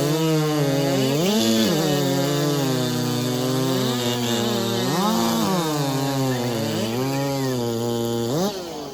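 Big-bore racing chainsaw of over 90cc at full throttle, cutting through wood in a timed race cut. Its note dips several times as the chain bites under load and recovers. Near the end the pitch jumps briefly as the cut finishes, and the sound falls away.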